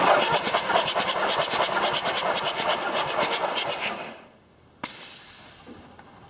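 VW 2.5 TDI five-cylinder diesel turning over on its starter for a compression test: a hissing, rhythmic chuffing several times a second that stops about four seconds in, followed by a sharp click.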